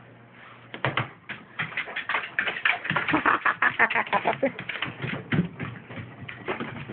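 Dog whining and whimpering in short, broken cries over rapid clicking, like claws on a hard floor; the dog needs to go outside to relieve itself.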